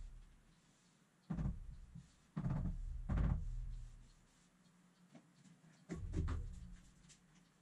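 Dull thumps of hands pressing and pounding a laminate sheet down onto a plywood cabinet bonded with contact cement: three short hits about a second apart, then a cluster of lighter clicks and knocks about six seconds in.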